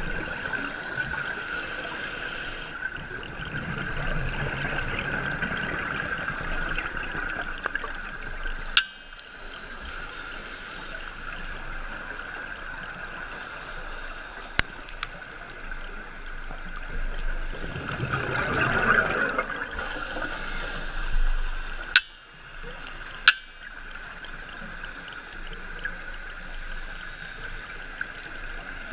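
Underwater sound heard through a GoPro dive housing: scuba divers' regulator exhaust bubbles gurgling and hissing in swells every several seconds, over a steady high hum, with a few sharp clicks.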